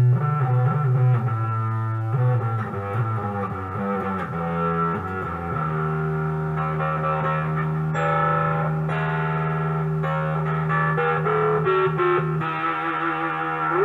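Monoprice Mini Cali electric guitar with swapped pickups, played through a heavily distorted effects setting: a run of changing notes and chords, then from about five seconds in a single low note held and ringing on.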